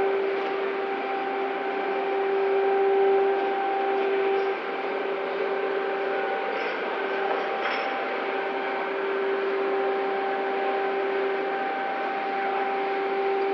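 Heavy dockside machinery running steadily: a constant humming whine over a broad, even machine noise, with a few faint clicks.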